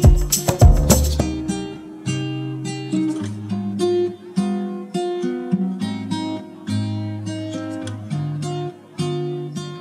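Background music: a loud track with a sharp beat cuts off about a second in, giving way to plucked and strummed acoustic guitar.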